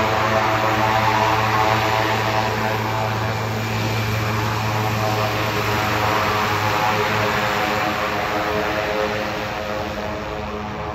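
Pilatus PC-6 Turbo Porter's turboprop engine and propeller running steadily as the plane taxis past, a hum of several steady tones. A low drone drops away about seven seconds in, and the sound eases off slightly toward the end.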